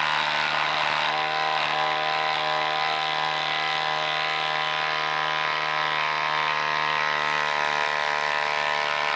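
Hilti Nuron SID 6-22 cordless impact driver running steadily in reverse with a continuous buzz, backing a long lag bolt out of a log under load.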